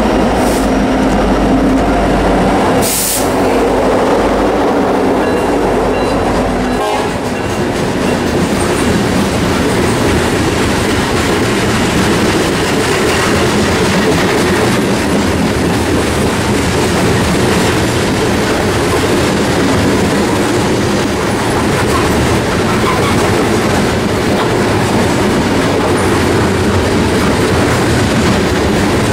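Norfolk Southern diesel locomotives passing with a heavy low engine rumble that drops away about seven seconds in. A long string of coal gondolas then rolls steadily by, wheels clicking over the rail joints.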